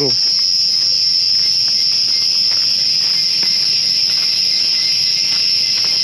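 Jungle insects buzzing in a steady, unbroken high-pitched chorus, really loud.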